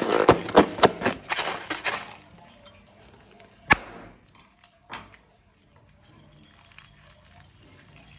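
Crackling and clicking as slime and balloons are handled: a dense patter of crackles for about two seconds, then two single sharp clicks.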